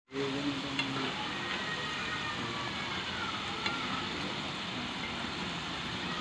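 Steady sizzle of potato sticks deep-frying in hot oil in a pan during the second fry, with a few faint pops.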